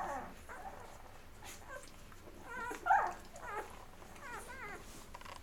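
Eleven-day-old chocolate Labrador puppies squeaking and whimpering while nursing: a few short, wavering squeals, the loudest about three seconds in.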